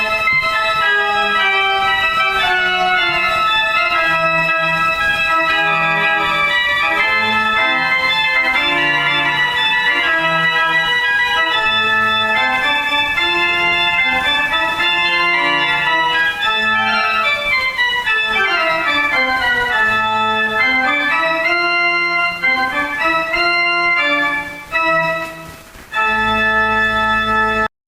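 Instrumental organ music with several sustained, moving voices; a dip in level, then one final held chord that cuts off abruptly near the end.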